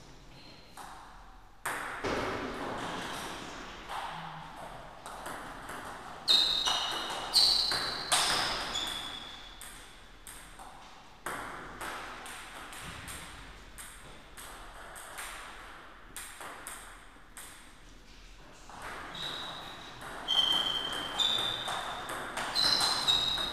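Table tennis ball struck back and forth by the bats and bouncing on the table in several rallies. Each hit is a sharp ringing tock with a short echo in the hall.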